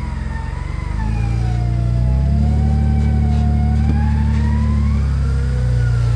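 A Jeep Wrangler's engine working hard under load as the 4x4 climbs a steep, rutted dirt slope. Its low drone swells about a second in and holds steady, while a high wavering whine rises and falls above it.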